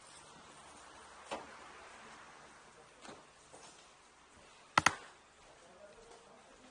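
A few sharp clicks and taps in a small wooden room, the loudest a quick double click about five seconds in, over a faint hiss.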